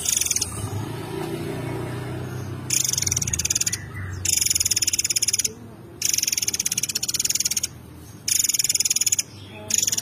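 Caged murai air songbird singing a rapid, high, buzzy trill in bursts of about a second each, five times, with short pauses between. A low rumble sits under the first few seconds.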